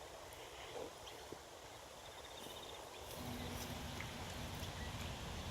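Faint outdoor background noise with a few small ticks; a low rumble comes up about three seconds in.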